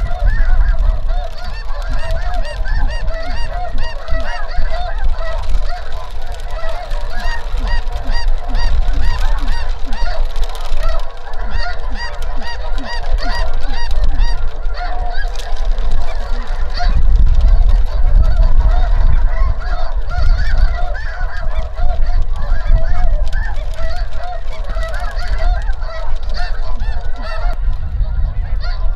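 A huge flock of snow geese calling overhead: a dense, unbroken clamour of many overlapping honks, with a low rumble underneath.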